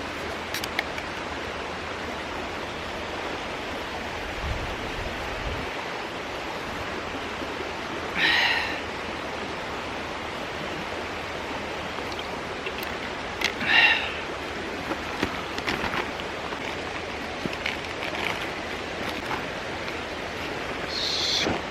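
Mountain stream rushing steadily. Three short, brighter sounds break through it, about eight seconds in, about fourteen seconds in and near the end, with a few small clicks in between.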